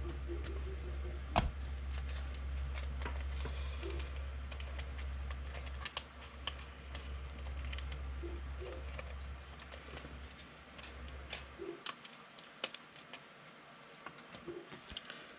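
Irregular light clicks and taps, scattered and uneven, with a sharper one about one and a half seconds in. A steady low hum runs underneath and cuts off suddenly about twelve seconds in.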